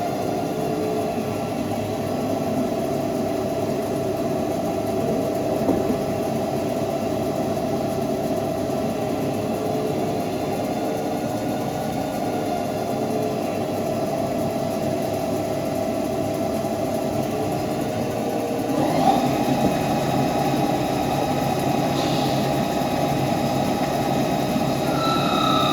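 CNC lathe running while machining a pinion: a steady mechanical hum with several held tones. About 19 seconds in there is a brief knock and the hum shifts, and near the end a higher whine comes in.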